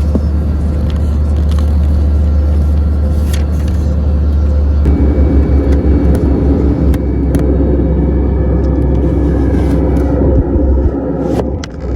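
Steady low rumble of a moving vehicle heard from inside it. It grows louder and rougher from about five seconds in and dips briefly just before the end.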